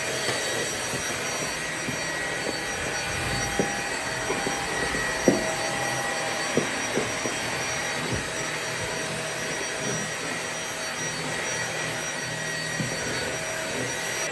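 Vacuum cleaner running steadily: an even rushing hiss with a faint steady whine. Several brief clicks stand out in the middle.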